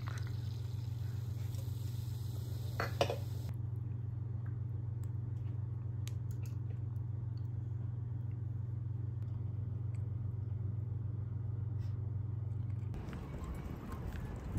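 Steady low hum with a few faint clicks and a tap about three seconds in. About thirteen seconds in it gives way to city street noise with traffic.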